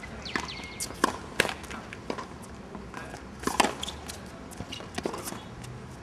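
Tennis balls struck by rackets and bouncing on a hard court, a series of sharp knocks with the loudest hit about three and a half seconds in. Tennis shoes give a brief squeak on the court surface just after the start.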